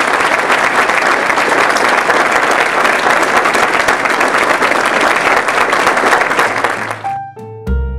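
An audience applauding steadily. The clapping cuts off suddenly about seven seconds in, and music begins near the end.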